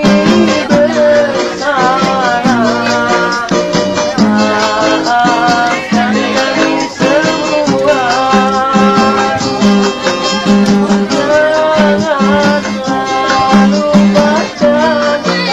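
Music: a melody sung over guitar, with a shaker keeping a steady rhythm.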